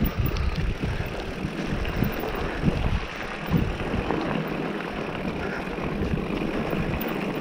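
Mountain bike rolling along a dirt logging trail: tyre rumble on the dirt with scattered small knocks and rattles from the bike, and wind buffeting the camera microphone.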